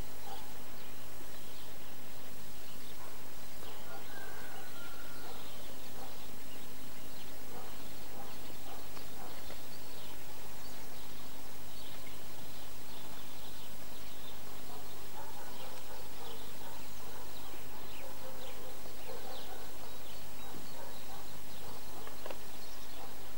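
Outdoor ambience: a steady hiss with a low hum, and faint, scattered short chirps.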